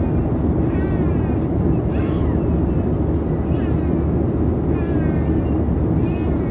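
Steady cabin noise of an Airbus A320 with its engines running, a dense even rumble. A few faint, short, wavering high-pitched calls rise over it about once a second.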